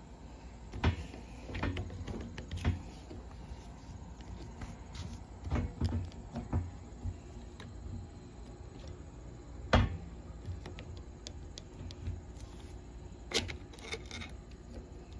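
Steel screwdriver prying at the impulse coupling gear of an IHC H1 magneto, working it up off the shaft: scattered metallic clicks and scrapes, the sharpest about ten seconds in.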